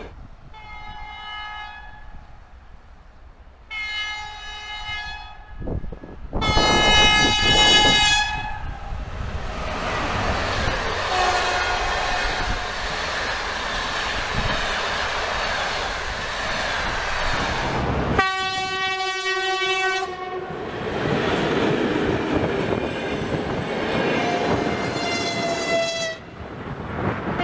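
Locomotive whistle blasts sounding several times over the running noise and clatter of a moving train. The loudest blast comes about seven seconds in, and a shorter one sounds near the middle.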